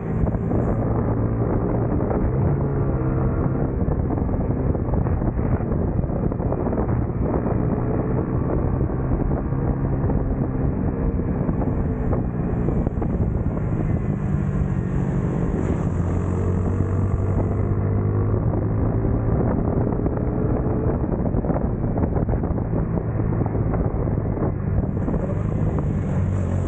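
Small racing motorcycle's engine running hard on track, its note rising and falling in pitch, with wind buffeting a bike-mounted camera's microphone.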